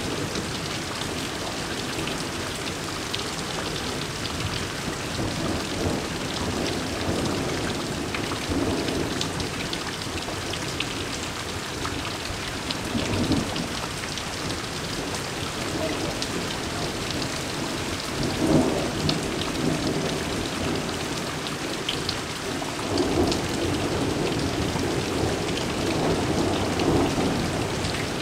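Heavy rain pouring steadily onto the ground and leaves during a summer thunderstorm. Rolls of thunder rumble through it several times; the loudest comes about two-thirds of the way through, and another long roll follows near the end.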